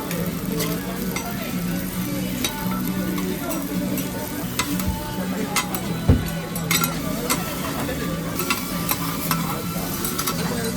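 Okonomiyaki sizzling on a hot griddle, with frequent sharp scraping clicks of utensils against the cooking plate, over a steady low hum.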